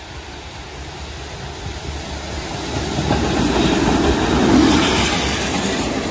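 Steam locomotive hauling passenger coaches approaching and passing close by, growing steadily louder and loudest about four and a half seconds in as it goes past.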